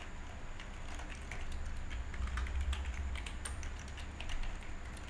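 Typing on a computer keyboard: a run of quick, irregular keystrokes over a low, steady hum.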